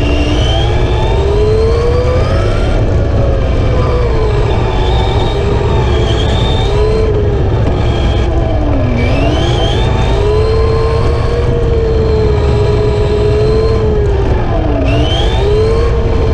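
Whine of a 1/10-scale Tamiya TT-01E RC touring car's 17.5-turn Orion sensored brushless motor and gear drivetrain, heard from a camera inside the body. The pitch rises and falls with speed, dropping sharply twice, about halfway and near the end, as the car slows for corners, over a steady loud low rumble.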